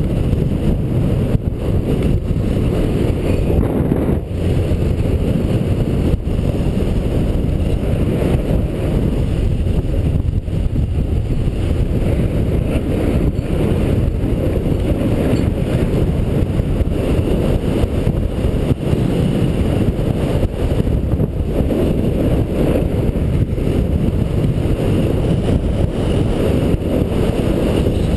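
Wind buffeting the microphone of a body-worn action camera on a skier going downhill, a steady low rumble, with skis scraping over packed snow underneath.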